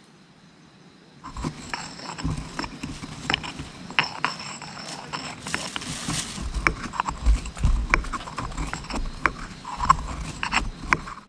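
A homemade spice blend of dried garlic, onion, peppercorns and sea salt being ground by hand: rapid, irregular crunching and clicking that starts about a second in and stops just before the end.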